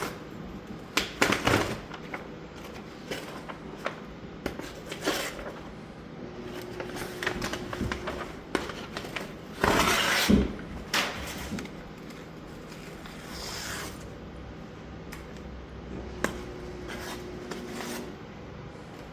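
Vinyl wrap decal being peeled from its backing paper and handled: irregular crinkling, rustling and scraping, loudest in a rough burst about ten seconds in.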